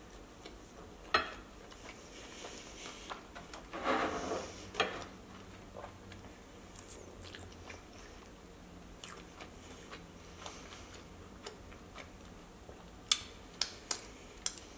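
A person chewing a soft mouthful of meatball slider with spaghetti buns, with scattered wet mouth clicks and a louder burst about four seconds in. Near the end, a quick run of sharp wet smacks as fingers are licked.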